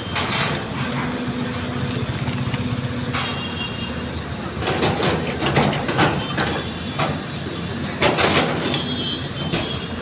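Excavator diesel engine running steadily, with several short, harsh noisy bursts of work sound over it: one just after the start, one about three seconds in, a cluster in the middle, and more near the end.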